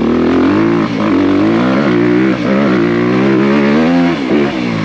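Honda CRF250R's single-cylinder four-stroke engine revving as the bike is ridden hard. Its pitch climbs and drops several times with the throttle, with a sharp drop about four seconds in.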